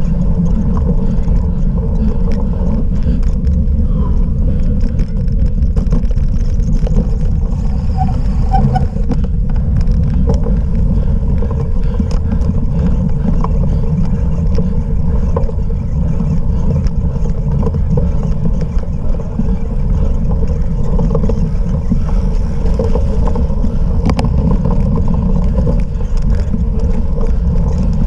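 Steady loud wind rumble on the microphone of a cyclocross bike being ridden, with many small clicks and rattles from the bike over rough ground.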